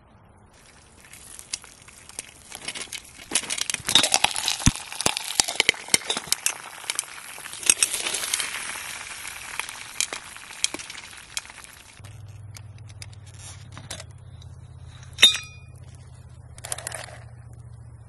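Popcorn popping in a lidded metal pot over a campfire: a rapid patter of sharp pops that thickens a few seconds in and dies away after about eleven seconds. Later, a single sharp metallic clink.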